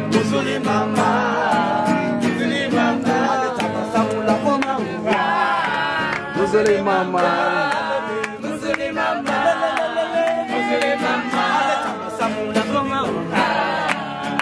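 A group of voices singing together to a strummed acoustic guitar.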